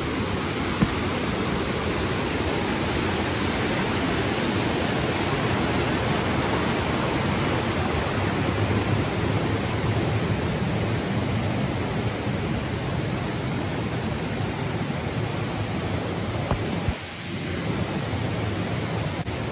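Steady rushing noise with a low rumble underneath, unbroken except for a brief dip about seventeen seconds in.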